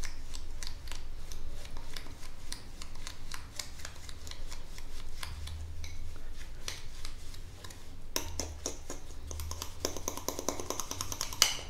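Sugar, butter and cinnamon being rubbed together by hand in a glass bowl into a crumbly topping: a steady run of fast, gritty scratching clicks that grows louder and denser for the last few seconds.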